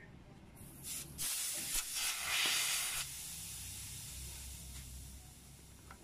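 A click or two about a second in, then refrigerant gas hissing out of a fridge capillary tube just cut with pliers. The hiss is strongest for about two seconds, then fades to a weaker steady hiss.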